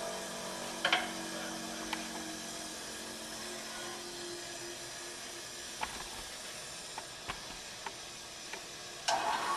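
Tool grinder running with a steady hum and hiss, with several short sharp ticks scattered through. A louder burst of noise comes near the end.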